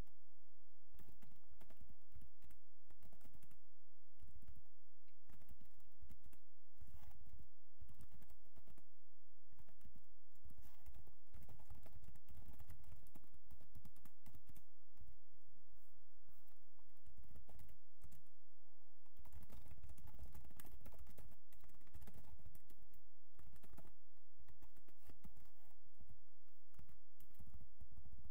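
Typing on a computer keyboard: quick runs of keystroke clicks with short pauses between them, busiest about a third of the way in and again past the middle.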